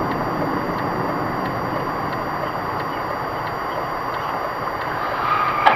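Steady road noise of a moving car, with a single short click near the end.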